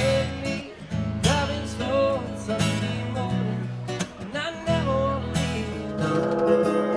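A man singing while strumming an acoustic guitar, performed live. About six seconds in, it crossfades into a different live band with keyboard and electric guitar.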